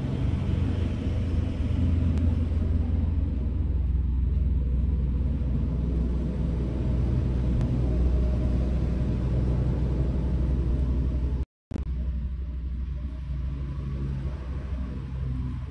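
A steady low rumble, with a short gap about eleven and a half seconds in.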